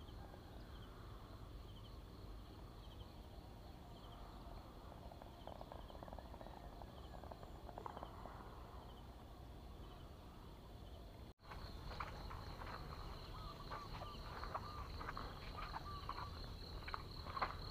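Faint rural outdoor ambience: insects chirring steadily, with small repeated chirps. The sound drops out for an instant about eleven seconds in, then returns a little louder with a continuous high insect buzz, bird chirps and footsteps on a dirt path.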